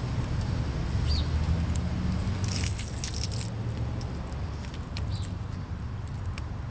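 Split fatwood sticks clicking and scraping against the tin-can feed tube of a homemade rocket stove as they are pushed in, in a dense flurry about halfway through. Under it runs the steady low rumble of city background noise.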